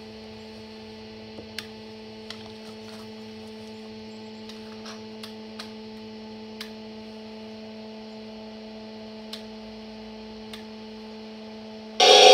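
A steady electrical hum with a few faint, scattered clicks. Just before the end it gives way to a sudden loud noise.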